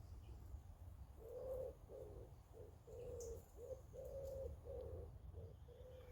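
A pigeon cooing: a run of about eight soft hoots, some drawn out and some short, starting about a second in, over a steady low rumble.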